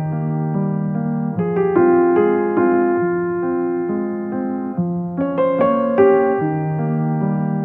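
Background piano music: held chords and single notes, with new notes struck about every second or two.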